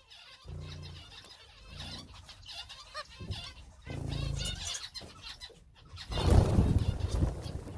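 Small cage birds, finches and canaries, chirping busily with fluttering wings, and a louder flurry of wingbeats and noise about six seconds in.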